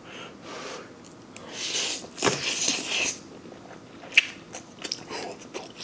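Close-up eating sounds: a long, loud slurp of wide flat rice noodles in the middle, then wet chewing with sharp mouth clicks and lip smacks.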